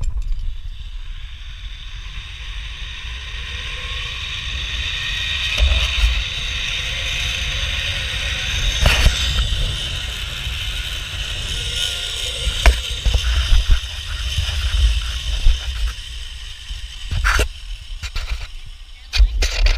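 Zip-line trolley pulleys running along a steel cable, a whir that builds over the first several seconds and then holds, with wind buffeting the microphone. A few sharp knocks come through it, more of them near the end.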